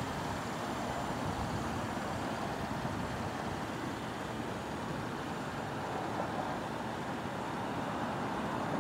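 Steady outdoor road-traffic noise: an even, continuous rumble and hiss.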